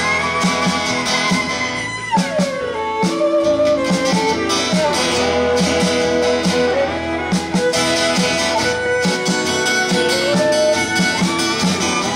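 A live string band playing an instrumental break without vocals: a fiddle bowed in a lead line over guitar, with notes that slide in pitch and a steady, evenly repeated low plucked beat underneath.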